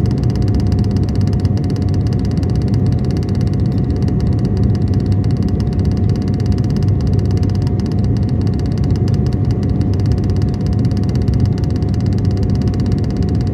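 Aircraft engine noise: a steady, loud rumble with one constant mid-pitched tone running through it.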